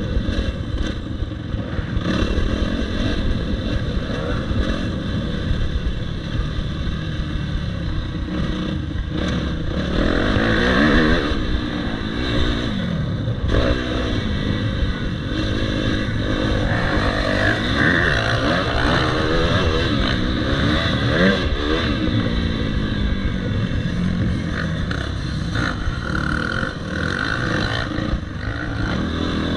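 Motocross bike engine heard from on board while riding a dirt track, its revs rising and falling over and over as the rider accelerates and backs off.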